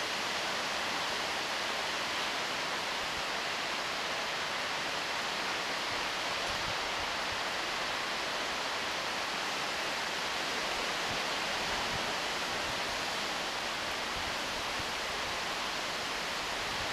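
Steady rushing of river rapids, an even hiss that neither rises nor falls.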